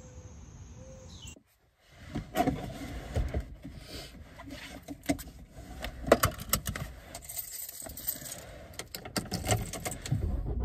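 Handling noises in a car's driver seat as a person settles in: rustling with a string of sharp clicks and rattles.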